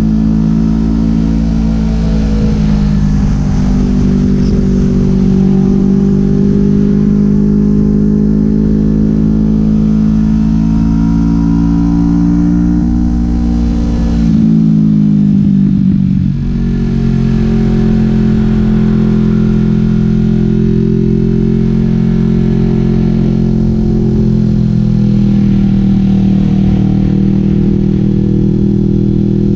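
Kawasaki Vulcan S 649cc parallel-twin engine running through a Delkevic 550mm slash full exhaust, heard from the rider's seat under way. The note slowly climbs, falls away briefly about halfway through, then holds steady.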